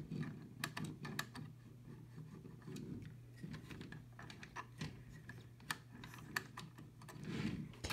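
Small, irregular plastic clicks and taps of HO scale freight cars being handled on the track as fingers work the couplers to join a boxcar to a hopper car.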